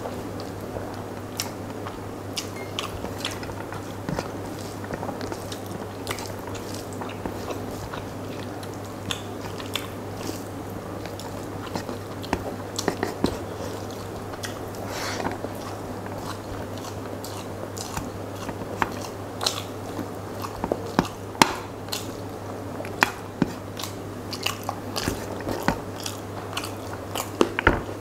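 Close-up eating sounds: a mouthful of rice and curry being chewed with many irregular wet clicks and smacks, and fingers mixing rice and curry on a steel plate. A steady low hum runs underneath.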